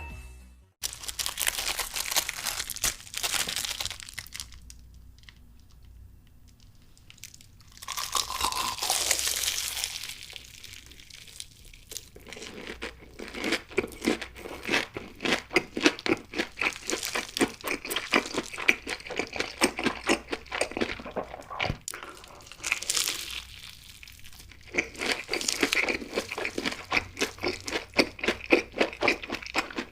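Close-miked eating of crispy fried food: crackling bites and rapid, repeated crunchy chewing, with a stretch of rustling and tearing a few seconds in and brief quieter pauses between bouts.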